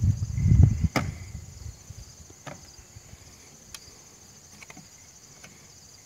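Clicks and knocks of an agricultural spray drone's arms being folded and latched into their holders: dull thumps in the first second, a sharp click about a second in, then a few lighter clicks. Crickets chirp steadily behind.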